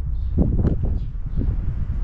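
Buell XB12SS Lightning's air-cooled V-twin idling through a Strike Weapon aftermarket muffler with a deep, uneven beat, with a brief louder pulse about half a second in. The seller reports no abnormal noises.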